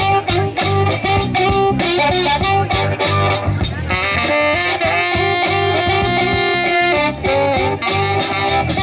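Live blues band playing an instrumental passage: drums, bass and electric guitars, with a long held lead note from about four to seven seconds in.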